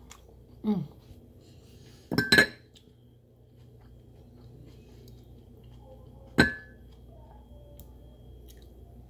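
Tableware clinking at a meal: a cluster of sharp clinks with a short metallic ring about two seconds in, and one more ringing clink about six seconds in. A brief falling tone comes just before the first clinks.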